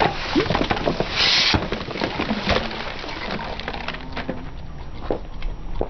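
Crunchy and soft objects being crushed under a car's tyre: a dense run of crackles and snaps, with a few short squeaks and a brief hiss about a second in.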